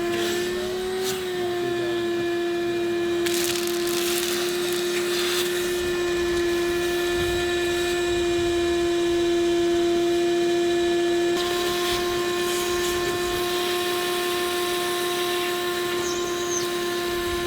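A machine's steady, pitched hum runs throughout, wavering slightly about a second in and changing tone about eleven seconds in. A few sharp knocks and clatters sound over it in the first five seconds.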